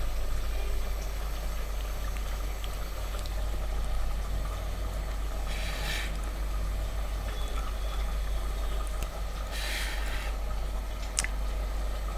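Chicken curry simmering in a pot on a gas stove, over a steady low hum. There are two short bursts of hiss, about six and ten seconds in, and a sharp click near the end.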